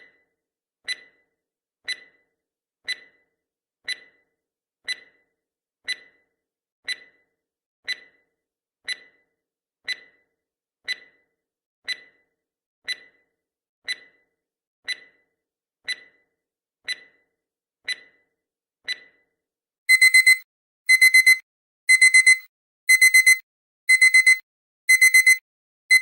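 Countdown timer sound effect: a sharp tick once a second for about nineteen seconds, then a digital alarm-clock beeping that goes off when the countdown ends. The alarm is a group of quick high beeps repeated about once a second, louder than the ticks.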